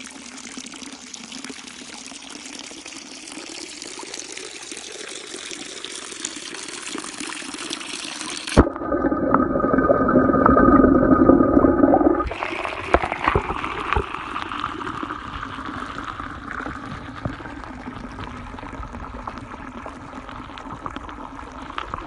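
Three short clips of water, joined by sudden cuts: first a steady hiss, then about four seconds of loud, dull rushing from a waterfall, then water gushing from a pipe and splashing into a shallow channel.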